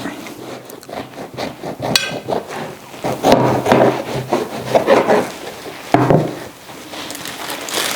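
A knife sawing through a loaf of unsliced white bread, in a run of uneven scraping strokes.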